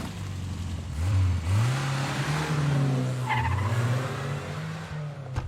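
Car engine pulling away: its note rises about a second in, holds steady, then drops back about halfway through.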